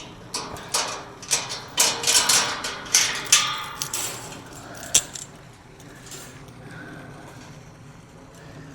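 A quick run of clattering, knocking and scraping, as of things being handled, for about five seconds, with a last sharp knock before it dies down.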